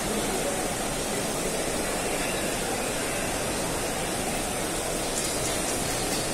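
Heavy rain falling steadily onto a wet stone courtyard, an even rushing hiss.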